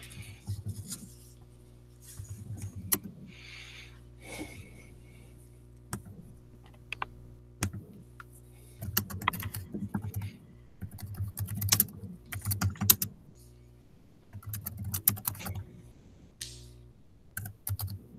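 Typing on a computer keyboard: irregular bursts of key clicks with pauses between them, over a steady low electrical hum.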